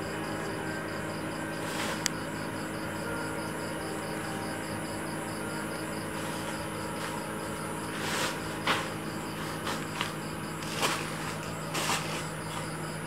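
A steady low electrical hum under a fast, even, high-pitched pulsing of about four pulses a second, with a few sharp clicks about two seconds in and a cluster of them in the second half.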